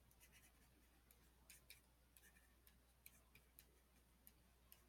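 Near silence with faint, irregular light clicks: the tip of a pen or stylus tapping and writing on a surface.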